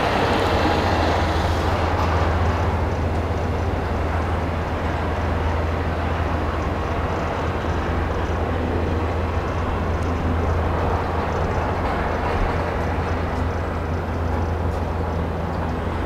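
Steady low rumble with an even hiss over it, unbroken throughout.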